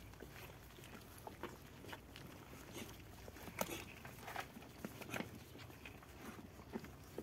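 A litter of puppies eating together from a shared plastic bowl: irregular soft clicks and smacks of chewing and lapping.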